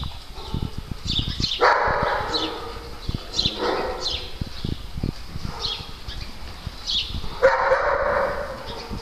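Small dogs barking and yipping in play: three longer barks about two, three and a half and seven and a half seconds in, between quick high yips, with low thumps throughout.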